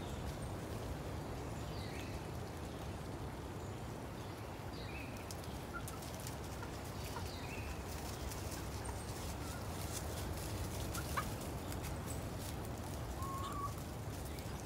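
Domestic hens calling with short, scattered clucks and chirps, and one longer wavering call near the end, over a steady low background rumble.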